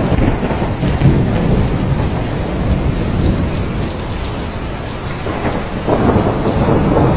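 Thunderstorm: steady heavy rain under a low, rolling rumble of thunder. The rumble eases a little past the middle and swells again near the end.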